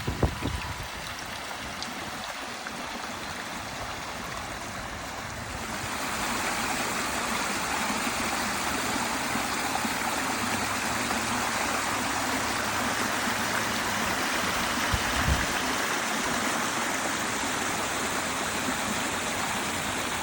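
Water running steadily over a pond waterfall, a constant rush that gets louder about six seconds in.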